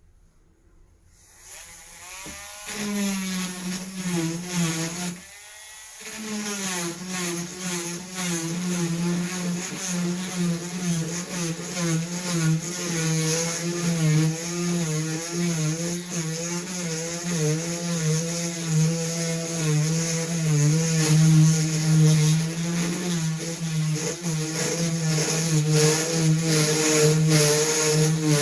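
Dremel rotary tool starting up about a second in and drilling dry into a stone with a small round bit: a steady motor whine under a high gritty grinding hiss, the pitch wavering as pressure on the bit changes. It eases off briefly around five seconds, then keeps grinding.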